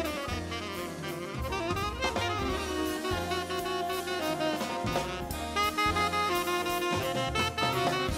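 Big band jazz: saxophones and brass playing over a swinging drum kit.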